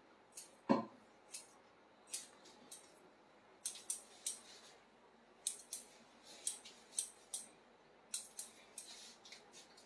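Hairdressing scissors snipping through hair in quick, irregular cuts, about twenty short sharp snips. A single dull thump less than a second in is the loudest sound.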